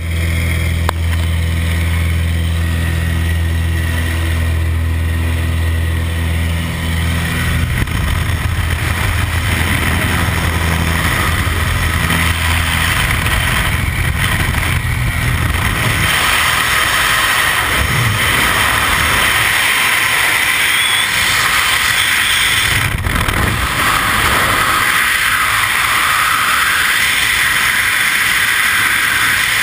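Aircraft engine and propeller drone with wind noise through the open jump door, its low hum fading after several seconds. From about halfway, a steady rush of freefall wind over a helmet-mounted camera.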